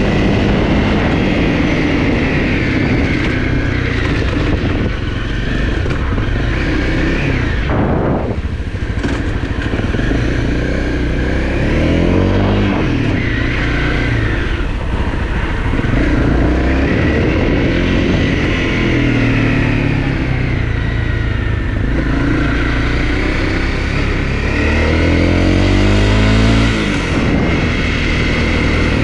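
Single-cylinder four-stroke Honda CRF250 dirt bike engine under way, revving up and easing off over and over as it is ridden. The revs drop sharply about eight seconds in. A steady rush of wind and ground noise runs underneath.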